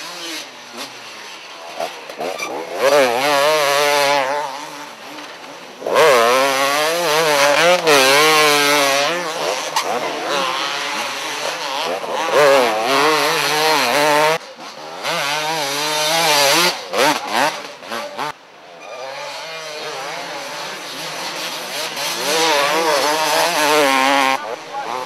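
Two-stroke motocross bikes racing past one after another, their engines revving hard and falling away in quick surges with throttle and gear changes, several loud passes in a row.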